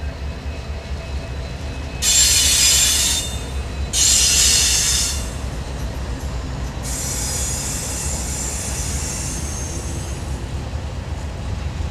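Freight train's covered hopper cars rolling past with a steady low rumble, their steel wheels squealing on the curve: two loud high-pitched squeals, about two and four seconds in, each lasting over a second, then a fainter squeal from about seven to ten seconds.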